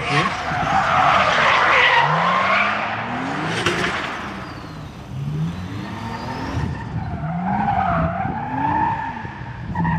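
A car drifting: its engine revving up again and again as the rear tyres spin and screech across the tarmac, sending up heavy tyre smoke. The screech is strongest in the first few seconds.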